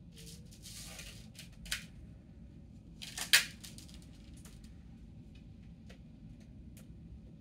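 A tabby cat pawing and batting a cat toy on a suction-cup stand on a plastic tray: soft scrapes and light ticks of paws and claws on the plastic, a click a little under two seconds in and a louder, sharper scrape just over three seconds in.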